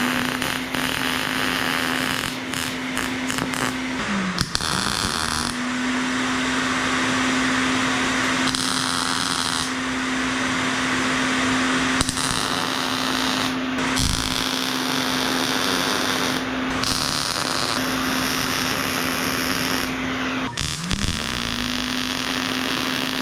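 Angle grinder running at full speed and grinding on metal, the cutting noise changing as the disc bites and eases off. The motor is let off and spun back up twice, a little after 4 seconds in and again near the end.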